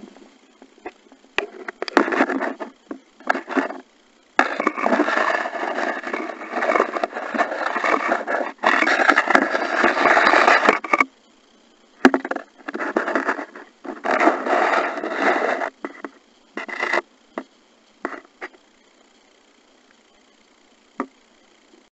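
Muffled rubbing and water-movement noise recorded by a Polaroid Cube's own microphone from inside its sealed waterproof case while submerged. It comes in irregular bursts, the longest lasting several seconds, with near-silent gaps between them.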